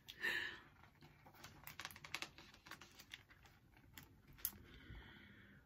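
Faint handling of a hardcover picture book as a page is turned: soft paper rustles and scattered small taps.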